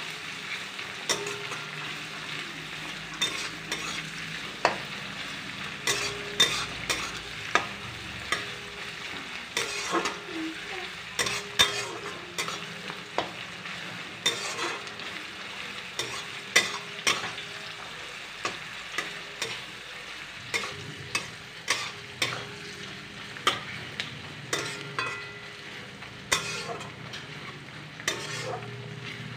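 Chopped onions sizzling in hot oil in a metal wok while a spatula stirs them, scraping and tapping against the pan about once or twice a second. The onions are being fried until reddish-brown.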